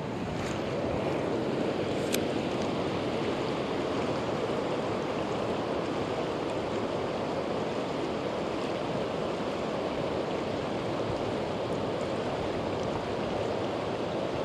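A river running high, with a steady rush of fast current. Two faint clicks come in the first couple of seconds.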